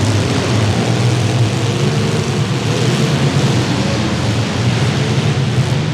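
Engines of several compact demolition derby cars running hard at once, a loud, steady, dense engine noise with no distinct crash standing out.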